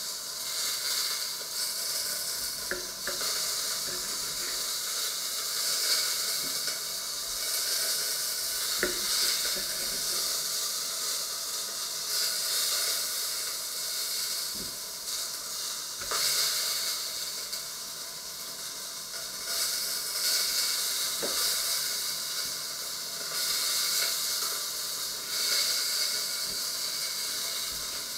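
A steady hiss that swells and fades every few seconds, with a few faint knife taps on a wooden cutting board as gherkins are sliced.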